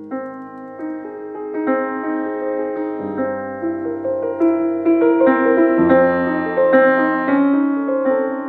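Fazioli F183 grand piano played: a gentle piece of sustained chords under a melody, growing louder about halfway through.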